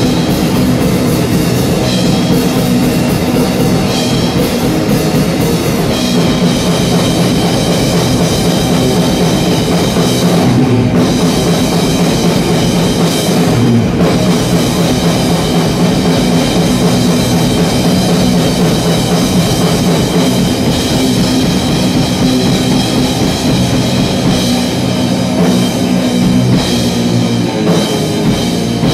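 Heavy rock played live by electric guitar and drum kit: a loud guitar riff over steady drumming and cymbals.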